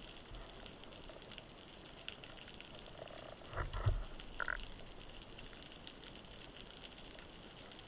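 Underwater sound picked up by a camera mounted on a speargun: a steady faint hiss with scattered small clicks, and a short cluster of dull knocks followed by a brief squeak about three and a half to four and a half seconds in.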